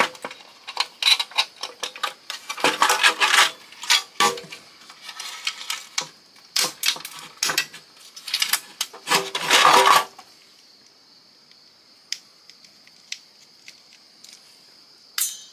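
Small metal and plastic parts of a fax machine clicking and clattering as it is pulled apart by hand, a rapid run of sharp clinks for about ten seconds, then quiet, with one more sharp click near the end.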